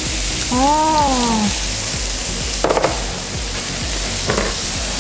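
Chopped onion sizzling steadily in a little oil in a granite-coated wok over a gas flame, with a couple of short clicks about halfway through and near the end.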